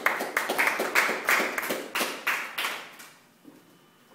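A small audience applauding: a handful of people clapping irregularly, fading out about three seconds in.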